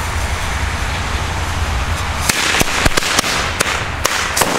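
A ground firework hisses steadily, then about halfway through it goes off in a rapid string of about seven sharp firecracker bangs, roughly three a second, over a crackling hiss.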